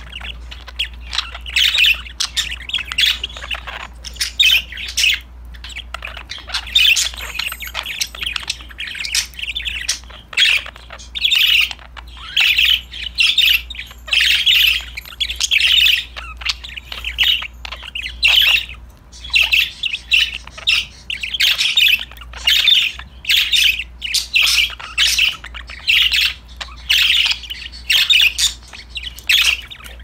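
Budgerigars chirping and chattering in quick clusters of short, high calls, one burst after another.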